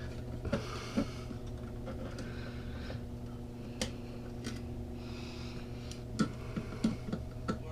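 Steady machinery hum, with a handful of light clicks and knocks from tools and parts being handled at intervals.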